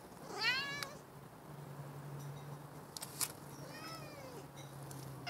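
Domestic cat meowing twice: a loud meow about half a second in and a fainter one near the four-second mark. A sharp click comes just after three seconds.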